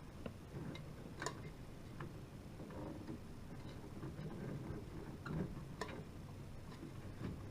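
Scattered small clicks and knocks, about six spread over several seconds, from a Hyper 212 Evo CPU cooler's mounting hardware being worked into the motherboard holes, over a faint low rumble.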